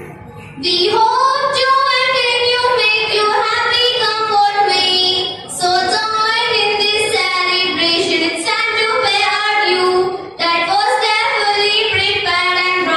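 Young girls' voices singing a welcome song, starting about half a second in, the phrases broken by two short pauses.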